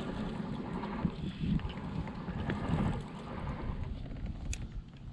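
Wind buffeting the microphone out on open water, an uneven low rumble, with one sharp click near the end.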